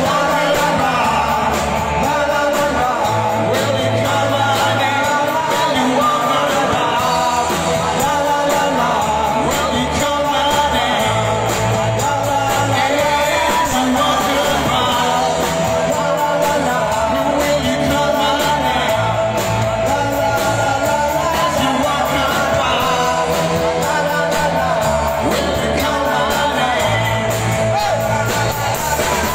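A live rock band playing: a man sings over electric guitars and a drum kit.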